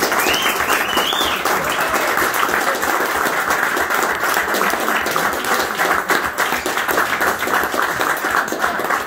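Audience applauding steadily, with one pair of hands clapping close to the microphone. A few voices cheer in the first second or so.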